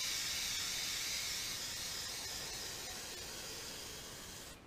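Aerosol spray-paint can spraying: one long continuous hiss that slowly fades and stops just before the end.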